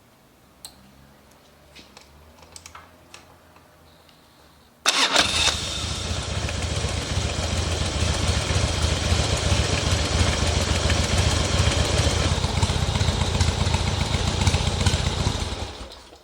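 A Harley-Davidson Twin Cam 88 V-twin motorcycle engine, fitted with Screamin' Eagle mufflers, after a few light clicks, starts about five seconds in with a brief loud burst, catches at once and runs steadily for about ten seconds, then dies away near the end.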